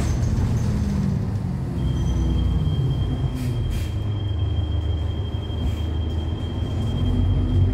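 Inside a 2013 New Flyer XDE40 diesel-hybrid bus (Cummins ISL9 engine, Allison hybrid drive) under way: a low drivetrain drone that shifts in pitch, with a steady high-pitched whine from about two seconds in and a few brief rattles around the middle.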